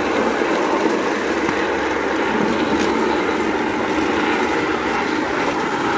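Steady running noise of a rail trolley moving along the railway track, with a continuous rumble and rattle of wheels on the rails.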